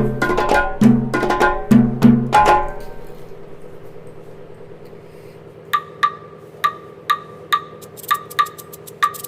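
Background music: plucked string and bass notes for the first three seconds, fading out, then after a short gap a light wood-block-like tick rhythm, the ticks coming in pairs at the same pitch.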